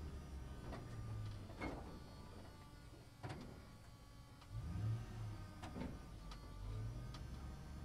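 Inside a moving double-decker bus: the low drone of the drivetrain swells and eases a couple of times, with sharp rattles and knocks from the bus body scattered through.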